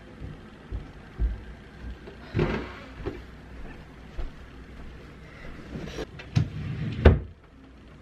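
Footsteps on a floor as someone walks into a bedroom, then a few short knocks and rustles as a bundle of laundry is put down on the bed, the loudest knock coming near the end.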